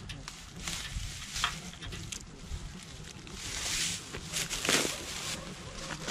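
Rubber boots stepping and shuffling in dry rice straw and stubble, giving irregular rustling with a louder stretch about three and a half seconds in.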